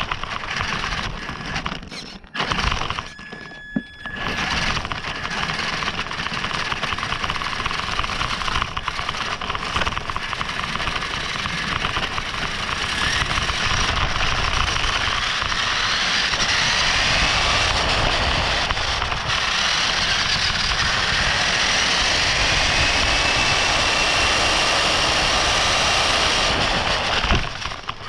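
Radio-controlled car driving over gravel, picked up by its onboard camera: a dense rattling and crunching of stones under the tyres, with a drivetrain whine that glides up and down in pitch in the second half. The noise drops away briefly about two to four seconds in.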